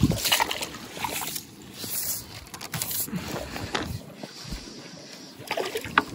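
Water splashing and sloshing as a hooked fish is drawn into a landing net in shallow water, with a loud splash at the start and more splashing near the end.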